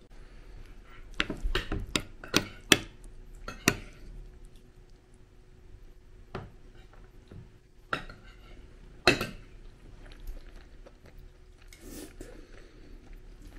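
Cutlery clinking and tapping against plates during a meal: a quick run of sharp clinks in the first few seconds, then a few single clinks spaced out later.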